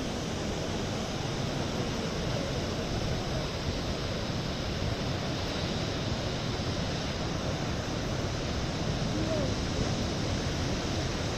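Ocean surf breaking against rocks: a steady, even rush of water with no single crash standing out.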